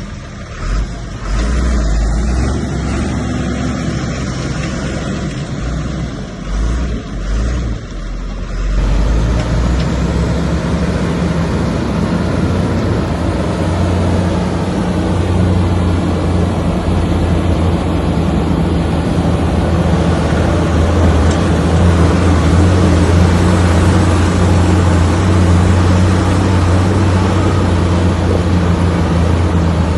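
Diesel engine of heavy earth-moving machinery running: an uneven low rumble for about the first nine seconds, then, after a sudden change, a steady, louder engine drone with a deep hum.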